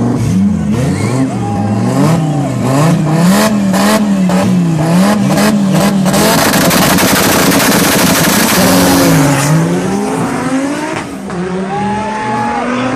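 A car engine is revved up and down about once a second. Then comes about three seconds of loud rushing tyre noise with squeal as the wheels spin. Then the engine accelerates hard, its pitch climbing, with a drop at a gear change before it climbs again.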